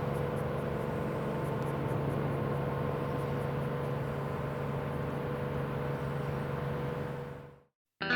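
Tugboat engine running steadily, a low drone with a constant hum, fading out near the end.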